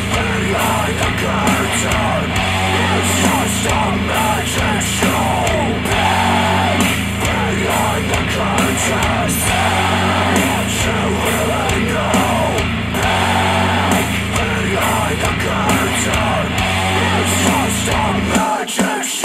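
Rock music played back through Dayton Audio B652 Air bookshelf speakers driven by a Yamaha A-S301 integrated amplifier. It is loud and dense, with no break.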